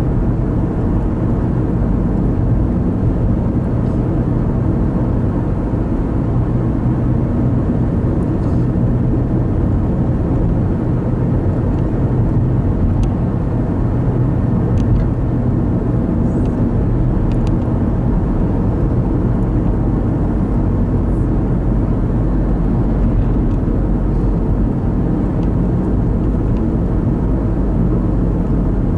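Steady engine and road noise of a car cruising at highway speed, heard from inside the cabin.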